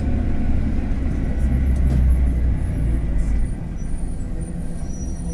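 Mercedes-Benz OF-1721 BlueTec 5 bus under way, a steady low engine drone with a growling bearing. The drone eases off about three and a half seconds in.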